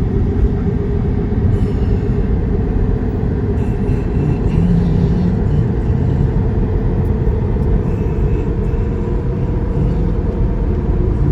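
Steady low road and tyre rumble heard inside the cabin of a Tesla Model 3 driving along a town street; the car is electric, so there is no engine note, only road noise.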